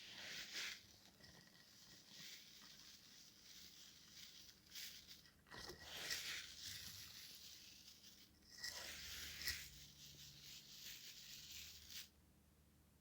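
Faint crinkling and rustling of foil confetti and its bag being handled and scattered for a mess test, in several bursts, stopping about twelve seconds in.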